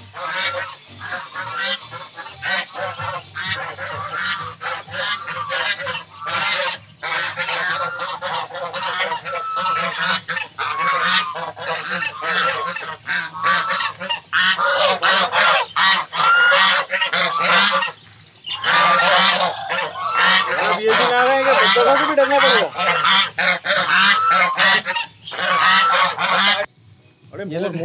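A flock of domestic geese honking loudly and almost without pause, many calls overlapping.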